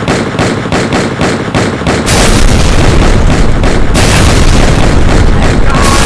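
Dubbed-in war sound effects: rapid automatic gunfire, about five shots a second, then from about two seconds in a loud, continuous explosion blast that is renewed twice.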